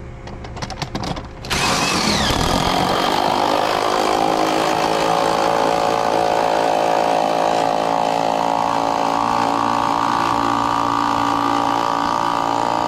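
Cordless impact driver running continuously, spinning the nut down the threaded bolt of a pool filter's clamp band to tighten it. It starts about a second and a half in after a few light handling clicks and stops just before the end.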